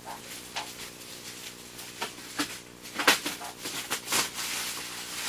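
Bubble wrap crinkling and rustling in the hands as it is unwrapped from a boxed doll: scattered crackles, the loudest about three seconds in, turning into a continuous rustle near the end, over a steady low hum.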